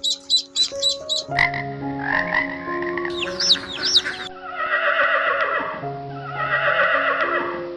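Animal calls over steady background music. There are quick repeated calls at first, then two high rising-and-falling calls, then two long buzzy calls.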